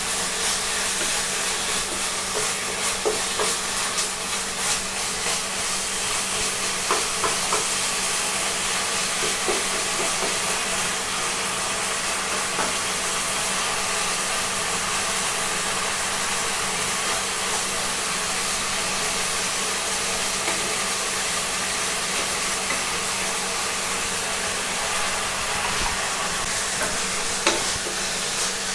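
Pork and baby Chinese cabbage sizzling steadily in a hot pan, with a spatula clicking and scraping against the pan now and then in the first ten seconds and again near the end.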